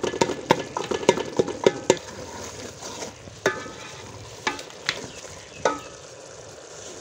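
A spoon stirs and scrapes masala frying in ghee, with a steady sizzle, while the masala is being fried down (bhuna). The spoon knocks against the pot rapidly in the first two seconds, then strikes it a few more times, spaced out, each strike ringing briefly.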